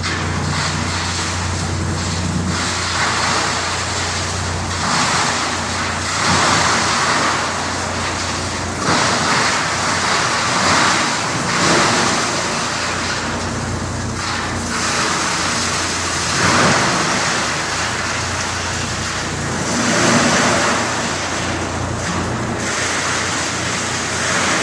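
HL1400-500 hammer-mill wood crusher running and grinding wood: a loud, continuous grinding noise that swells in surges every second or two. A steady low hum underneath drops away about five seconds in.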